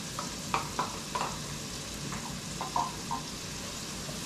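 Sliced onions frying in butter and olive oil in a skillet with a steady sizzle, while a utensil scrapes and clinks against the pan about seven times as they are stirred and tossed.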